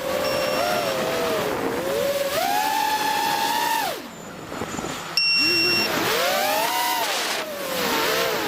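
FPV drone motors whining, their pitch rising and falling as the throttle changes. About halfway through the sound drops away for about a second, then comes back sharply with a loud punch of throttle.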